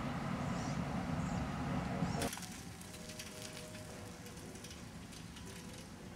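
Low rumble of a narrow-gauge train that cuts off abruptly about two seconds in. Faint scattered clicking and crackling follows.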